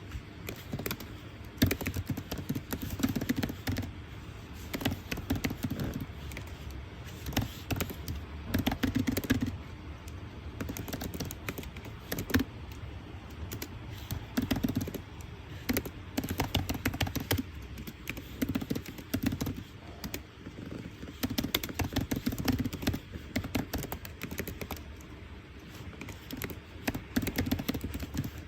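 Rapid irregular clicks and taps from study work at a desk, coming in spurts of a second or two with short lulls between.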